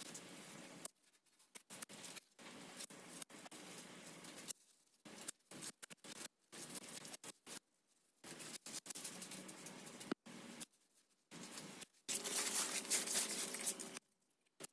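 Masking paper and tape being peeled off a freshly painted car body and crumpled by hand: irregular crinkling and rustling with short pauses, loudest for a couple of seconds near the end.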